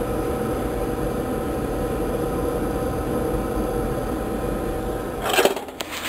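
Oil furnace burner firing steadily just after ignition, freshly primed with the air bled from its fuel line: an even blower-motor hum under the flame's rush. Near the end comes a brief rustle and knocking.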